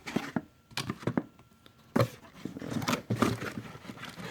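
Cardboard box and packaging being handled and opened: a string of knocks, scrapes and rustles, with a sharper knock about two seconds in.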